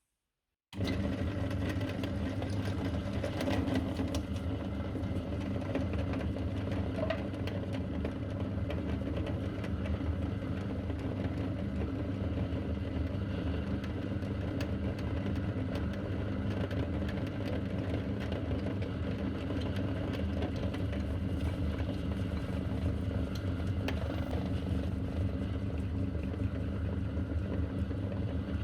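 Electric meat grinder starting abruptly just under a second in and then running steadily as it grinds chocolate bars, its motor hum even throughout, with scattered clicks.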